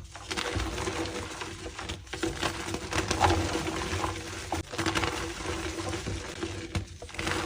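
Reformed gym chalk being crushed and crumbled by hand: a dry, powdery crunching and crackling with a few brief breaks, over a faint steady hum.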